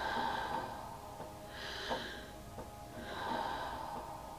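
A person breathing deeply and rapidly through an open mouth in a steady rhythm, about one hissy breath every second and a half: the rapid power-breathing of the Wim Hof method. Soft background music runs underneath.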